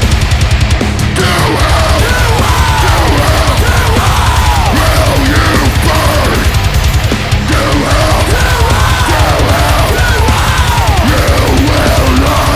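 Loud, aggressive heavy metal with fast, driving drums and distorted guitars, a lead line bending up and down in pitch over the top.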